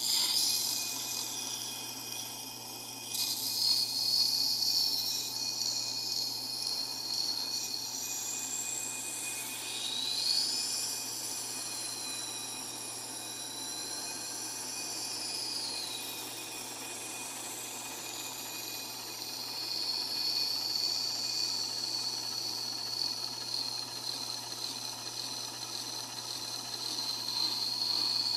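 Tormek sharpener running with a knife blade ground against its CBN wheel: a steady motor hum under a scraping grind with a high whine that shifts in pitch as the blade moves along the wheel.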